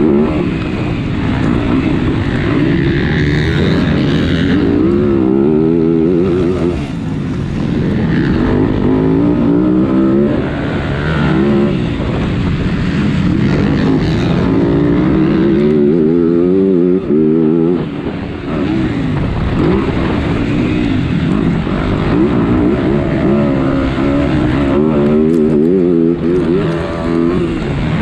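MX2-class motocross bike engine heard from onboard, revving hard and falling back again and again as it is ridden around a dirt track, with brief drops in throttle about 7, 18 and 26 seconds in.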